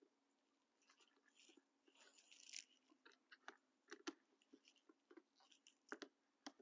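Faint rubbing and scattered small clicks of a rag wiping excess epoxy off a ski boot sole around the smile plate, loudest about two and a half seconds in.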